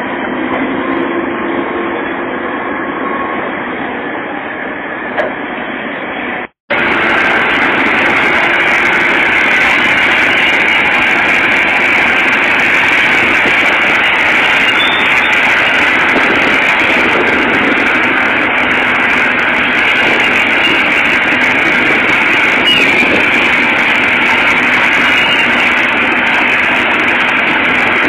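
Heavy diesel earthmoving machinery running steadily. There is a brief cut about six and a half seconds in, after which it is louder.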